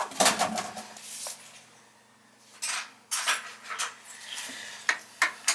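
Irregular metal clinks, scrapes and rattles of hand tools and oil-burner parts being handled, over a faint steady hum.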